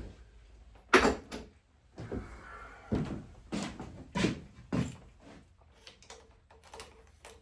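A series of sharp knocks and clacks from metal engine parts, the pushrods and gaskets of a V-twin top end, being handled and set down during teardown. The loudest knock comes about a second in.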